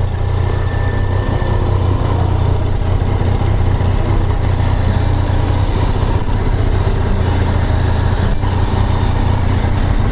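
Motorcycle engine running steadily at a low, even speed, heard close up.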